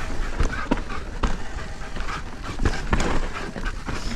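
Mountain bike tyres rolling over a dirt trail with a steady low rumble, the bike knocking and rattling irregularly over bumps, and a dog panting as it runs alongside.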